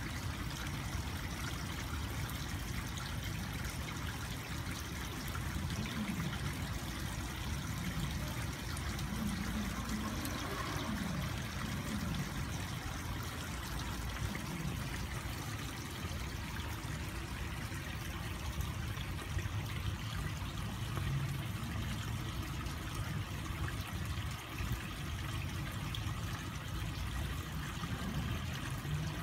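Steady trickle of running water feeding a garden koi pond.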